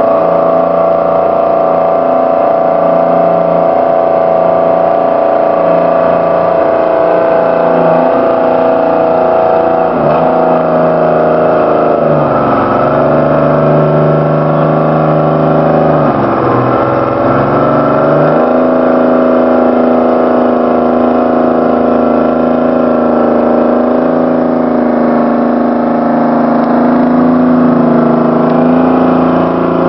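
Mountain Logger ML200 skidder's engine running as the machine drives over rough ground, its pitch sagging and recovering a few times in the middle before settling into a steady run.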